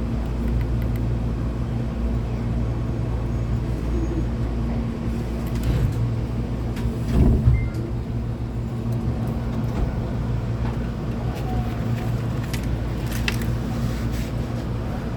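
Inside a Hankyu 8200-series commuter train standing at a station: a steady low hum from the car's onboard equipment, with a few clicks and one louder thump about seven seconds in.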